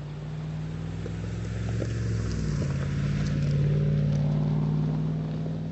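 Off-road vehicle's engine running at trail speed. Its pitch shifts about two and a half seconds in, and it grows louder toward the middle.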